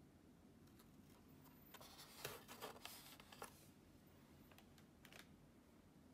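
Foil lid of an instant noodle tray being peeled back from its plastic rim: faint crinkles and crackles around the middle, then two light ticks.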